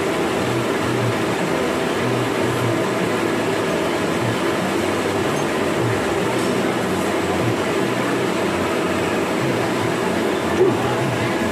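A workshop machine running steadily with a constant hum, with one short knock near the end.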